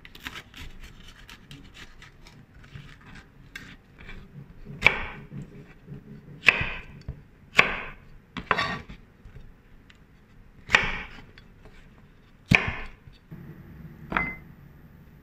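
Chef's knife chopping a red bell pepper on a wooden cutting board: light slicing clicks at first, then six sharp knock strikes of the blade on the board, one to two seconds apart. Near the end the pepper pieces go into a small glass bowl with a light clink.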